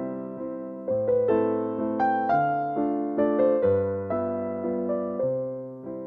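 Background music: a slow keyboard melody, each note struck and then fading.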